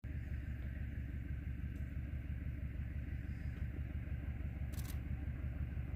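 Diesel-electric locomotive heard from afar, its engine giving a steady low rumble as the train approaches. A brief faint click comes about five seconds in.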